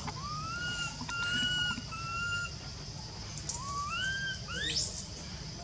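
Baby macaque crying with a series of about six high, clear calls, each sliding up and then holding its pitch, the cries of a frightened infant. A steady high drone runs underneath.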